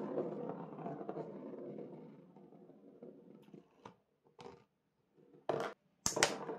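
Steel ball rolling around a cardboard spiral track of a marble run, a rattling rolling sound that fades over the first few seconds. Then a handful of separate sharp clicks and knocks of balls striking parts of the run, and near the end a louder clack as another ball starts rolling.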